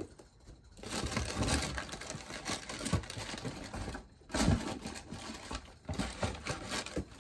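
Close rustling and crinkling as a sneaker is handled and lowered out of view, in uneven stretches with short breaks about four and six seconds in.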